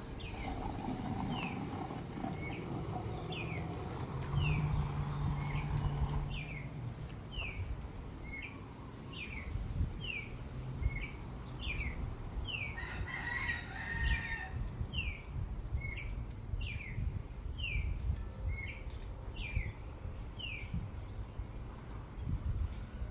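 A bird calling the same short chirped note pair over and over, about two notes a second. A rooster crows once about halfway through.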